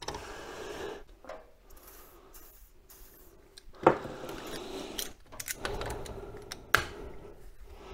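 Metal clicks and clinks of pliers working a freshly freed, previously seized handbrake lever mechanism clamped in a bench vise. There is a sharper clack about four seconds in and another near seven seconds.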